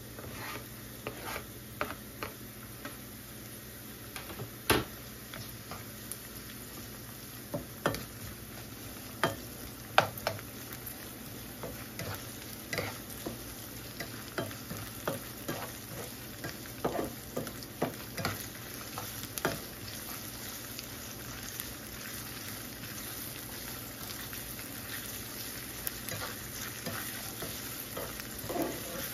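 Diced ham, onion and green pepper frying in a skillet with a steady sizzle, while a spatula stirs and scrapes through them, clacking against the pan now and then.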